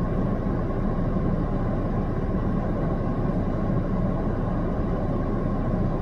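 Steady low rumbling noise, with no changes or separate events standing out.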